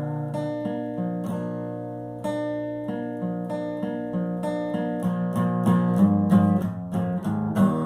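Acoustic guitar strummed through a series of chord changes, with no singing over it.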